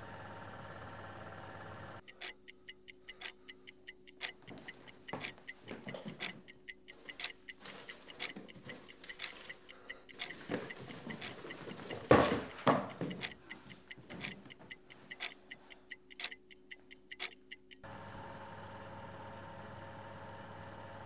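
A clock ticking steadily, about three to four ticks a second, with a few thuds and a sharper knock about twelve seconds in. The ticking starts and stops abruptly; before and after it there is only a steady low hum.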